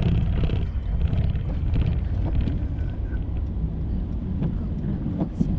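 Mercedes car driving on a wet road, heard from inside the cabin: a steady low rumble of engine and tyres, with scattered faint ticks and one sharp tick near the end.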